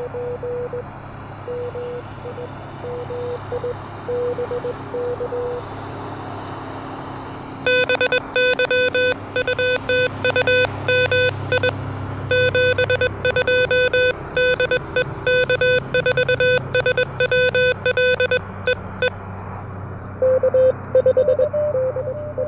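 Morse code tones from an Elecraft KH1 transceiver over steady band hiss. A weaker signal is keyed for the first few seconds. From about eight seconds in, a much louder, buzzier keyed tone sends rapidly for about eleven seconds. Near the end, a slightly higher-pitched signal is keyed.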